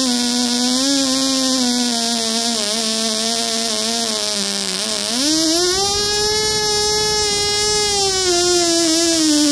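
COX TeeDee .010 miniature two-stroke glow engine running with a tiny RC carburetor, a high-pitched buzz. It runs at part throttle, sagging a little, then the throttle opens about halfway through and the pitch rises steeply to near full speed. It holds there for a few seconds, then eases back down near the end.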